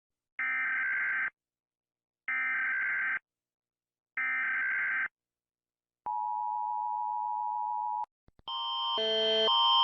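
Emergency Alert System tones: three one-second bursts of warbling data-header tones about a second apart, then a steady two-tone attention signal for about two seconds. Near the end a louder, pulsing alarm tone starts up.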